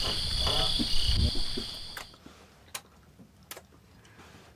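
Steady high-pitched chirring of night insects, with a door creaking and low thumps of steps in the first second or so; it cuts off suddenly about two seconds in, leaving a quiet room with two light clicks.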